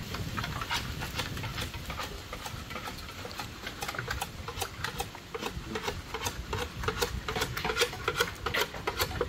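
Bolo knives shaving and striking bamboo poles: a quick, uneven run of sharp clicks and scrapes, several a second.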